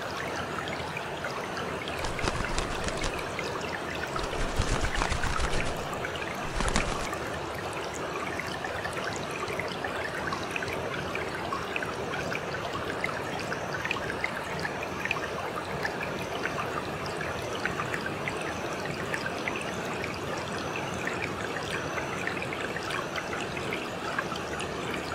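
Water flowing and trickling steadily, a river ambience, with louder stretches between about two and seven seconds in.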